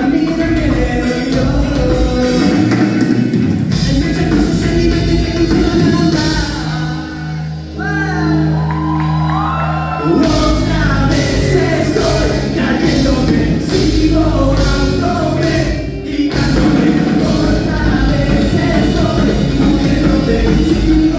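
Rock band playing live with shouted singing over the full band. About seven seconds in the band drops to steady held notes under a sung line, then comes back in full about three seconds later.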